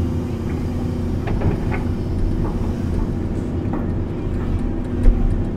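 Large excavator's diesel engine running steadily, heard from the operator's cab, a low even rumble with a steady hum over it.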